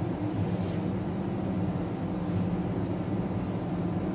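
Steady low room hum, with faint swishes of a duster wiping a whiteboard about half a second and two seconds in.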